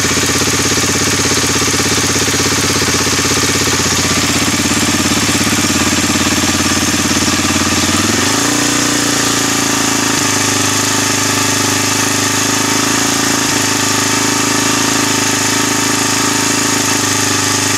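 Suzuki DR-Z250's single-cylinder four-stroke engine running at a steady idle, then brought up about eight seconds in to a higher, steady speed and held there. The owner calls the noise it makes bad and has no idea of its cause.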